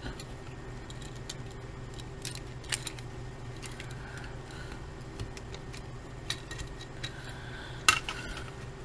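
Small clicks and light taps of a Sony TC-55 cassette recorder's parts being handled and fitted back together, with one sharper click near the end, over a steady low hum.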